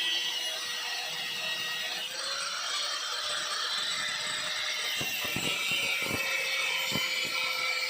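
Angle grinder running on metal: a steady motor whine over a harsh hiss, the pitch rising slightly about two seconds in. A few sharp knocks come between about five and seven seconds in.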